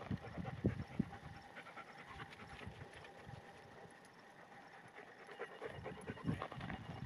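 A dog panting faintly in quick short breaths, growing louder near the end.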